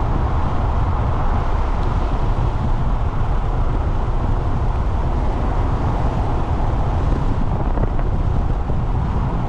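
Loud, steady wind noise buffeting the microphone, a dense rumble heaviest at the low end.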